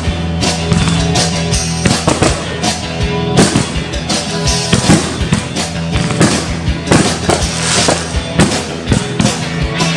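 Aerial fireworks shells bursting over and over, in a string of sharp bangs, over music.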